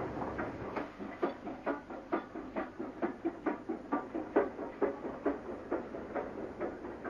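LMS Class 4F 0-6-0 steam locomotive working, its exhaust beating steadily at about two chuffs a second.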